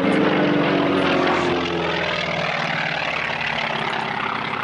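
Propeller aircraft engine heard as the plane flies past, its note dropping in pitch over the first couple of seconds as it goes by, then running on steadily.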